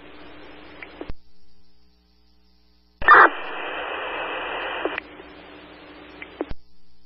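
Scanner audio of a fire department radio channel: hiss from transmissions keyed with no voice on them, each starting and stopping with a click. A short stretch of hiss stops about a second in, and after a silent gap a louder burst of hiss comes in with a click about three seconds in and fades to fainter hiss before cutting off.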